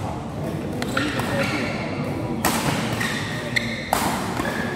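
Badminton rally: rackets strike the shuttlecock several times, sharp cracks that echo in the hall, over the chatter of voices.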